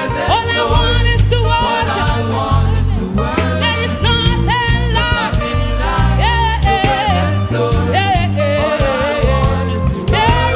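Gospel worship music: a singer's voice gliding over a band with a strong, steady bass line.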